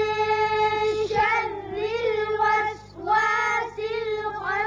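Children reciting a Quranic verse aloud in a high, chant-like voice, drawing out the vowels in long held notes in three stretches, with a short break about three seconds in.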